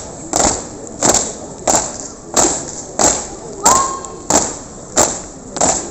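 A marching squad's feet stamping in step, a sharp heavy thud about three times every two seconds in an even cadence.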